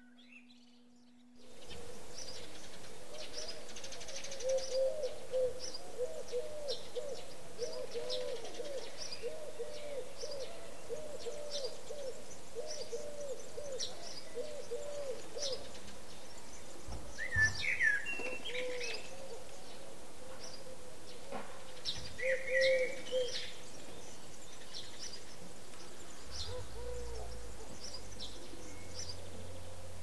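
Birds calling. A long run of low, evenly repeated hooting notes trails off into occasional single notes, over a scatter of short high chirps. Two louder bursts of chirping come midway and a few seconds later.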